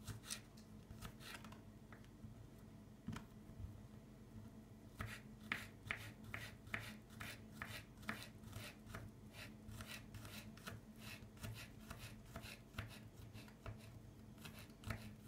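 Knife finely chopping a garlic clove: light, quick chopping taps. A few come at first, then after a short lull a steady run at about three a second.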